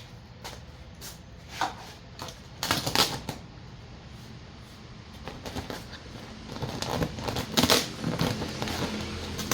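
Vinyl wrap film crinkling and rustling as it is handled and smoothed onto the car, in irregular bursts, loudest about three and eight seconds in.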